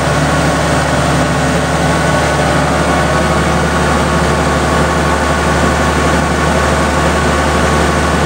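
Kubota combine harvester running steadily at close range while unloading harvested paddy through its auger pipe into a trailer: a loud, even machine drone with several steady low hums.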